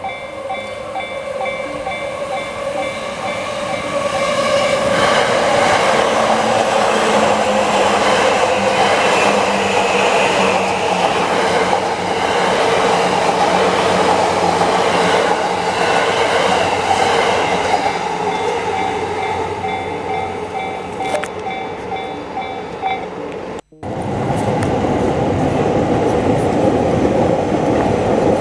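Japanese level-crossing warning bell ringing its rapid repeating ding as an electric commuter train runs through the crossing a few seconds in; its running noise drowns the bell, which is heard again as the train clears. After a sudden break near the end, train running noise again.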